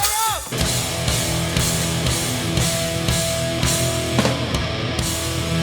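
Heavy distorted guitar music with drums keeping a steady beat: the intro to a hardcore punk set.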